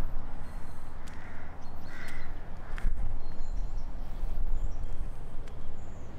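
Steady low rumble from wind on the microphone during an outdoor walk, with two short bird calls about one and two seconds in.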